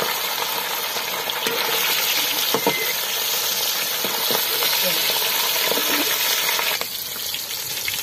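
Batter-coated fish pieces deep-frying in very hot ghee in a large aluminium pot: a steady bubbling sizzle. The pieces are stirred with a slotted metal skimmer, and the hiss softens a little near the end.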